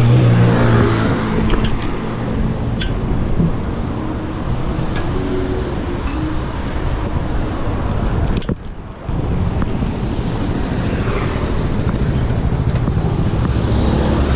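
City road traffic heard from a moving bicycle: a motor vehicle's engine close by in the first second, then a steady rush of traffic and road noise, dropping out briefly about eight and a half seconds in.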